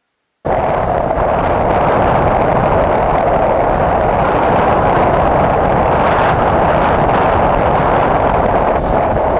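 Loud, steady wind rush on a helmet-mounted camera's microphone as a motorcycle rides along a road, with the bike's engine and tyre noise under it. It cuts in abruptly about half a second in.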